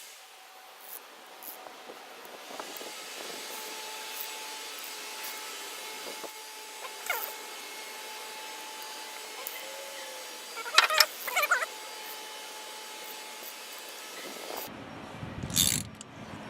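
Thread tap being turned by hand with a socket and ratchet into a head-bolt hole in a cast-iron engine block, cutting Helicoil threads: scattered small metal clicks over a steady background hiss, with a burst of louder sharp clicks about eleven seconds in.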